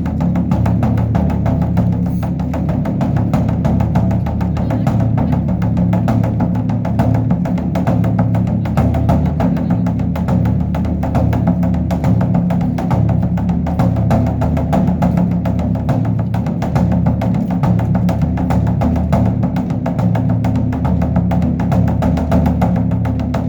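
Large Buddhist temple drum (beopgo) beaten in rapid, continuous strokes for the evening temple ceremony.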